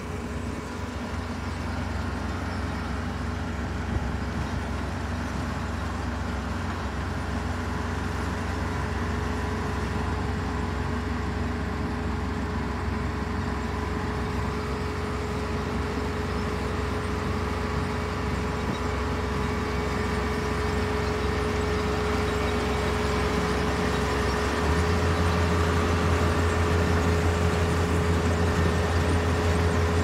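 Kubota DR472 combine harvester's 72-horsepower diesel engine running steadily: a low hum with a steady high whine over it. Near the end the low hum steps up and grows louder.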